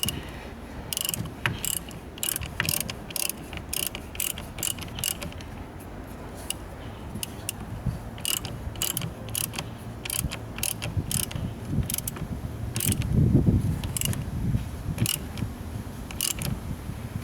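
Hand ratchet wrench clicking as a nut is turned, a long run of sharp clicks about two a second with short pauses between strokes. A duller low knock about thirteen seconds in.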